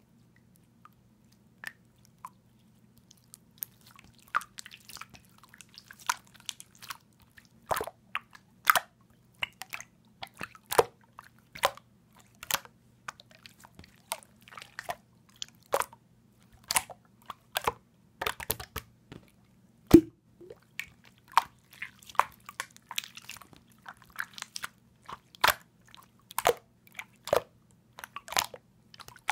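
Clear slime being squeezed and pressed by hand, making irregular sharp clicks and pops that begin a few seconds in and come thicker and louder from about eight seconds on, over a faint steady low hum.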